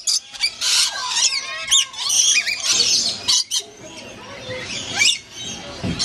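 Rainbow lorikeets calling: a busy run of short, high-pitched squawks and chattering calls, several birds overlapping.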